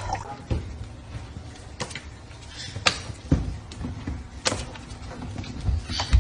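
A handful of short knocks and clicks, about six in all, scattered over a low background noise.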